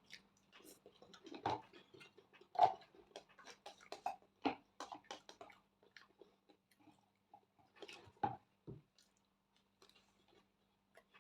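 Close-miked chewing and biting: a run of short, wet mouth clicks and crunches, busy for the first six seconds or so, then thinning out to a few scattered clicks.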